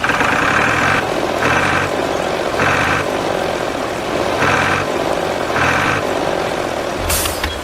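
Truck engine idling under a reversing alarm beeping about five times at uneven intervals, with a short hiss of air near the end.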